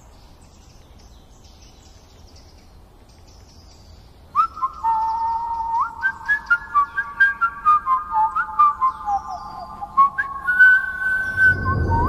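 Whistling: after a few quiet seconds, a run of clear whistled notes begins about four seconds in. Some are short, some are held, several slide up into their pitch, and they step up and down like a tune.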